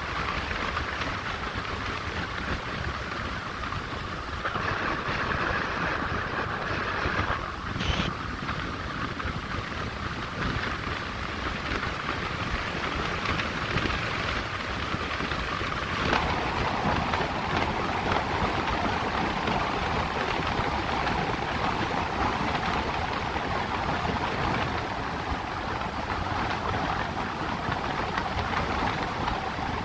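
Steady road and tyre noise from a moving car, whose character shifts about four seconds in and again about sixteen seconds in, with a brief click about eight seconds in.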